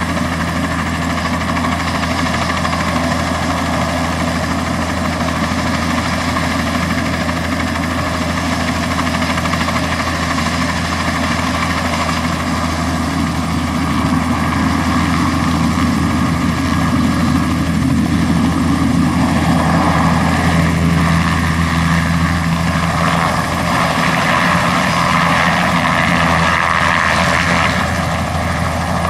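Bell 206B-3 JetRanger III helicopter running on the ground with its rotor turning, a steady turbine-and-rotor sound from its Allison 250 turboshaft. About halfway through it grows louder as power comes up, and it lifts off into a hover near the end.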